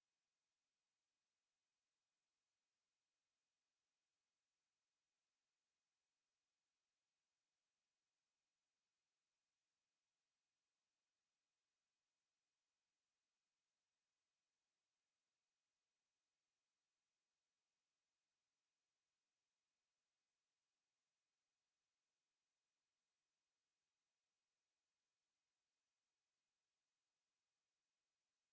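A pure 11093 Hz sine-wave test tone, a single steady high-pitched whine held at constant level without change.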